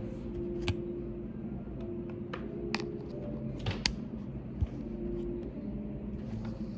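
Sparse computer keyboard typing: a handful of single key clicks at irregular intervals over a steady low room hum.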